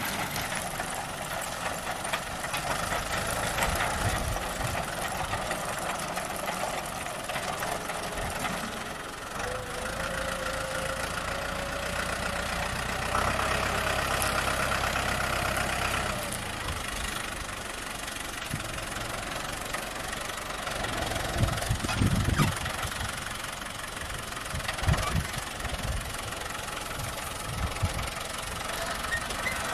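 A John Deere utility tractor's diesel engine running steadily under load as it pulls a red rear-mounted potato digger through the field. A faint whine rises slightly about a third of the way in, and a few low thumps come about three quarters of the way through.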